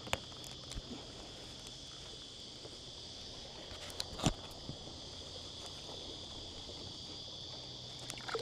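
Steady high-pitched drone of insects, two constant tones, over quiet water. A sharp knock about four seconds in, and a small splash near the end as a released bream slips back into the water.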